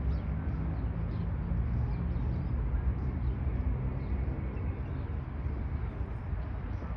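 Outdoor park ambience: a steady low rumble, like distant traffic, with faint short bird chirps scattered throughout.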